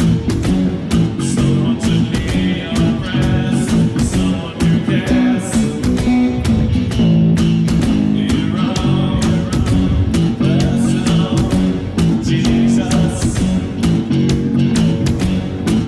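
Electric bass guitar playing a bass line along with a full band backing track that has a steady beat.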